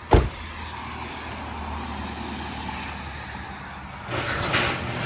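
A sharp thud at the start, then a car running with a steady low hum. It gets louder about four seconds in.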